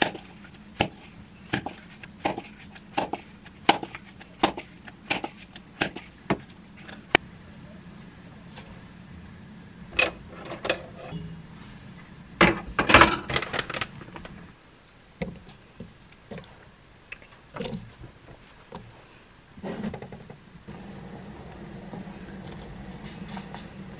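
Kneaded sujebi dough thrown down hard into a plastic bowl again and again, a sharp slap about every 0.7 s. After that comes a louder burst of kitchen knocks and clatters, and near the end the steady bubbling of a pot at the boil.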